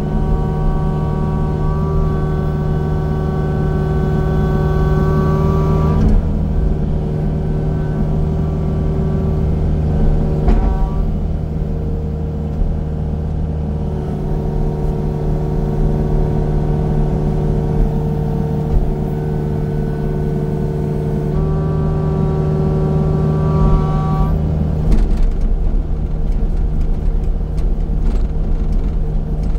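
Engine of a heavy land-clearing machine running steadily, with a higher whine laid over it that comes in and drops out several times, each stretch lasting a few seconds. A few light knocks near the end.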